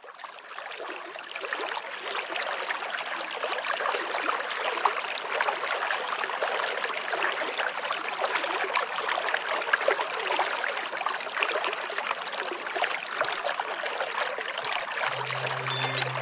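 Steady rush of flowing water, trickling and splashing, fading in at the start. Near the end come a few sharp clicks, then a low steady hum starts.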